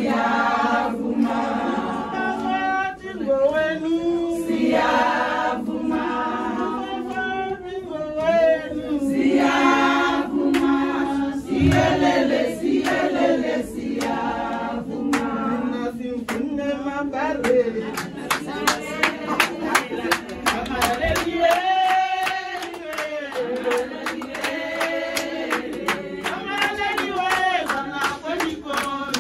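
A group of women singing a traditional Tswana wedding song together, unaccompanied. In the second half, steady rhythmic hand clapping joins the singing.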